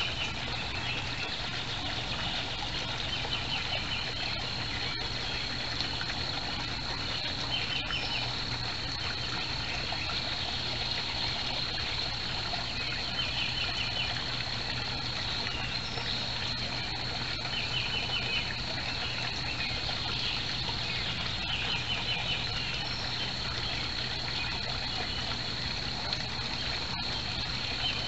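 Steady trickling water, with a small bird's short, rapidly pulsed trill repeating every few seconds.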